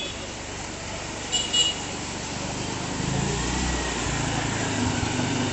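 Auto-rickshaw engines running as they drive through floodwater, with water splashing around the wheels. A horn gives two short toots about a second and a half in, and a nearby engine grows louder about three seconds in.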